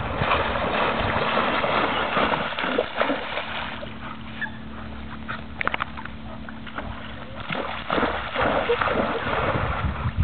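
Water splashing and sloshing as a bull terrier swims and paddles, louder in two stretches, near the start and again near the end.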